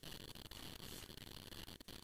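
Faint steady hiss with a few brief dropouts: the recording's background noise. There is no distinct paper-handling sound.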